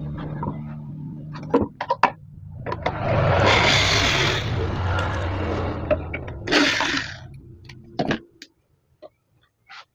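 Corded electric drill run in bursts to back out the screws holding a water-pump motor to its wooden mount: a few sharp clicks, then a run of about three seconds, a short burst near the end, and a knock.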